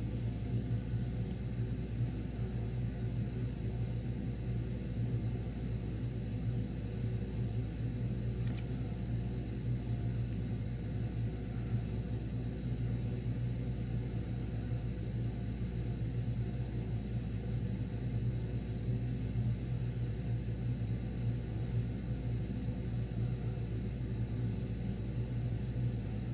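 Steady low hum and rumble that does not change, with a faint click about eight seconds in.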